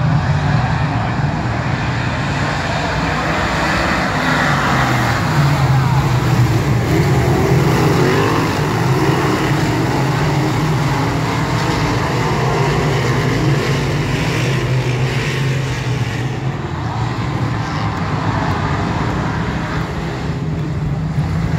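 A full field of dirt-track modified race cars running hard around the oval, their V8 engines making a loud, continuous din with pitches sliding up and down as cars pass.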